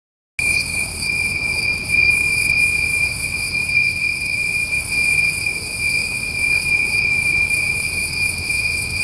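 Hot summer night insect chorus: a steady, high, ringing trill with a fainter fluttering hiss above it. It cuts in abruptly about half a second in.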